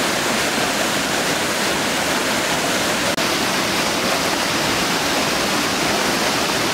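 Steady, loud rush of a river waterfall, an even wash of falling water with no pitch, cut off for a split second about three seconds in.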